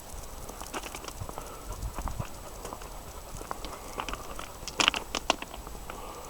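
Irregular crackling clicks and knocks, with a louder cluster of sharp knocks about five seconds in.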